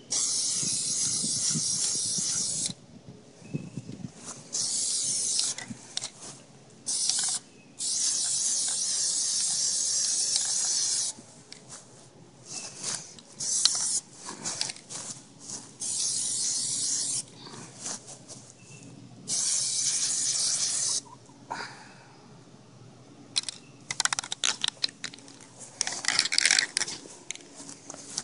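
Aerosol can of Plasti Dip spraying in about six bursts, each hiss starting and cutting off sharply; the longest bursts last about three seconds. Clicks and rustling from handling fall between the bursts, most of them near the end.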